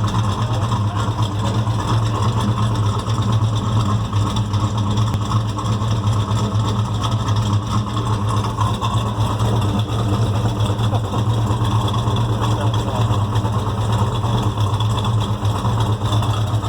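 Freshly rebuilt Chevrolet 396 big-block V8 in a 1970 Chevelle SS idling steadily, with a valvetrain tick that sounds like lifter noise but comes from a rocker arm that has worked loose.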